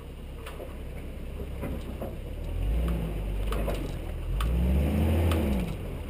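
Nissan GU Patrol's TB45 4.5-litre straight-six petrol engine pulling the 4x4 along a muddy dirt track. It revs up and eases off twice, the second time the longest and loudest. Scattered sharp clicks and knocks are heard throughout.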